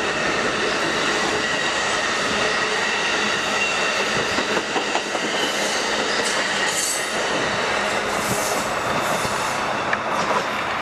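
Amtrak Superliner bilevel passenger cars rolling past at speed: a steady loud rush of steel wheels on rail, with a faint steady high tone over it and a few scattered clicks from the wheels crossing rail joints.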